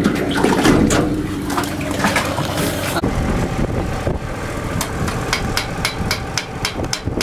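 A gold dredge's engine running steadily, with sharp clicks and taps over it that settle into an even, fast ticking after about three seconds.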